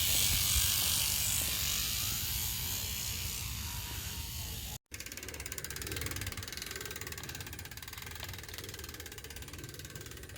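Industry Nine Hydra rear hub freewheeling: a fast, high-pitched ratcheting buzz from its pawls, slowly fading. It cuts out abruptly about five seconds in and picks up again, quieter.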